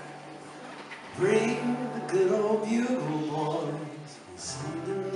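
A man singing to his own acoustic guitar. The guitar plays alone for about the first second, then the voice comes in.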